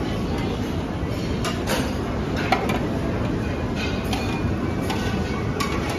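Buffet restaurant ambience: scattered clinks of metal serving utensils and dishes against steel pans, the sharpest about two and a half seconds in, over a steady background din.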